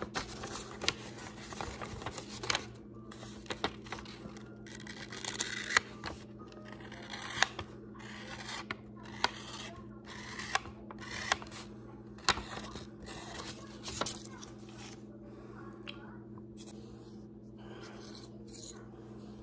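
Hands handling a sheet of paper and small hard objects on a stone countertop: paper rustling and crinkling with scattered sharp taps and clicks, quieter in the last few seconds, over a steady low hum.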